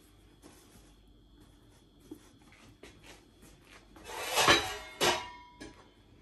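Cookware being handled: a few faint knocks, then a loud scraping clatter about four seconds in and a sharp knock just after.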